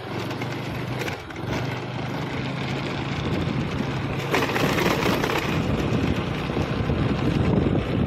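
Small two-wheeler engine running while riding along, with wind rushing over the microphone; the sound slowly grows louder.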